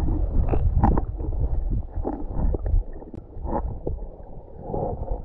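Muffled underwater sloshing and gurgling, heard through a camera microphone held below the surface of a pond, with a few brief sharper knocks.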